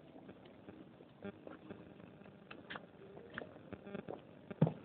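Close-miked chewing of crunchy baked clay pieces: sparse crunches and mouth clicks, with one sharper click near the end.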